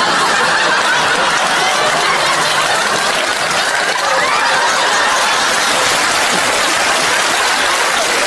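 Studio audience laughing and applauding, steady and loud.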